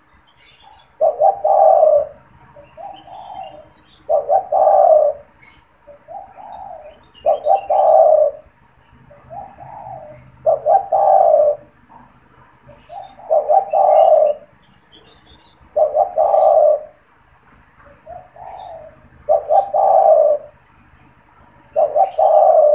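Spotted dove (tekukur) cooing over and over: a loud, low coo phrase about every three seconds, each followed by a softer coo. Faint chirps of small birds sound in the background.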